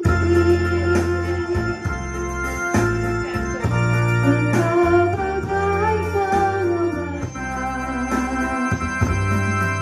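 An electronic keyboard set to an organ sound plays held chords over a deep bass line, with a woman's sung melody on top, amplified through PA speakers.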